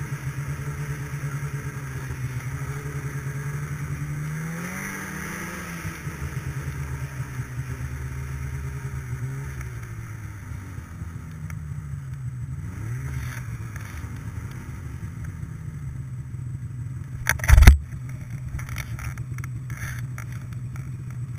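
Snowmobile engine running at trail speed, revving up briefly about four seconds in and easing back. A single loud thump about three-quarters of the way through.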